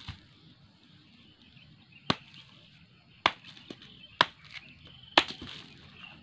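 Machete chopping cassava roots off the stem: four sharp chops about a second apart.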